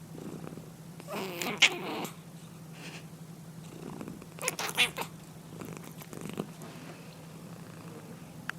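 Domestic cat snoring: two loud snores about three seconds apart, one about a second and a half in and one near the middle, with fainter breaths between.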